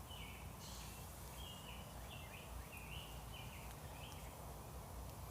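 A bird calling in the background: a quick series of short high chirps, about two or three a second, ending about four seconds in, over a steady low outdoor rumble.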